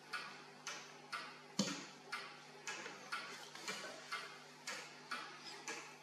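A clock ticking steadily at about two ticks a second, with one louder knock about a second and a half in, over a faint steady hum.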